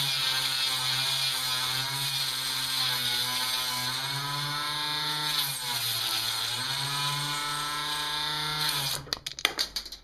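Small 1960s palm-massager electric motor, run off a variac, spinning with a steady high whine and hum. Its speed sags for a moment about six seconds in as fine wire is fed onto its shaft. About nine seconds in it cuts out with a quick rattle of clicks as the wire jams it.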